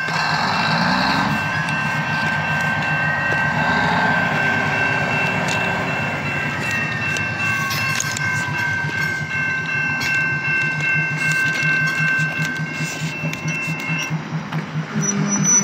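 Small diesel switcher locomotive running, its engine giving a steady low pulsing beat, with steady high tones over it that stop about fourteen seconds in.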